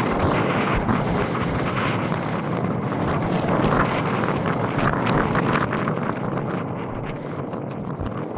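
Wind buffeting the camera's microphone: a steady, loud rushing noise with rapid flutter.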